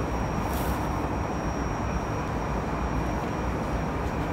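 Steady low rumble of outdoor railway-platform ambience, with a thin steady high whine and a brief hiss about half a second in.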